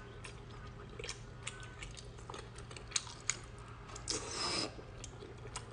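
Mouth sounds of someone eating abalone: scattered faint clicks and smacks of chewing, with one brief louder wet burst about four seconds in as the piece is bitten.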